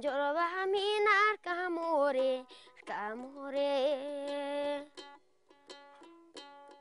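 A high voice singing a slow melody alone, sliding between notes. About five seconds in the singing stops and a plucked string instrument takes over with short, repeated notes.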